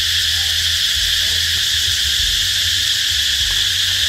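Loud, steady chorus of insects shrilling without a break, with a low rumble underneath.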